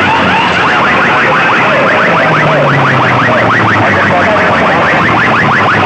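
Massed horn loudspeakers of a sound-box rig blasting a loud, overloaded electronic alarm-like sound effect. It turns into a rapid pulsing about two seconds in.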